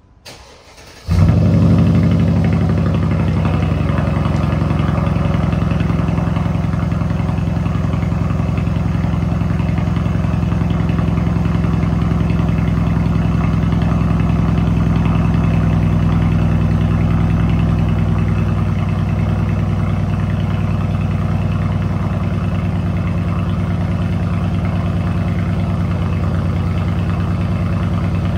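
2014 Mercedes-Benz E550's Renntech-tuned twin-turbo V8 cold-starting: a brief crank, then it catches about a second in and settles into a steady idle through its resonator-deleted exhaust.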